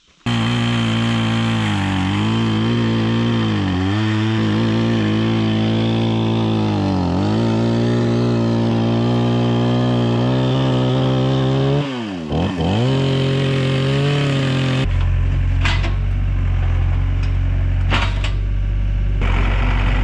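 Band sawmill's gasoline engine running hard, its pitch sagging and recovering several times as the blade takes load during a cut. About fifteen seconds in it gives way abruptly to a deeper, rougher engine rumble with a couple of knocks.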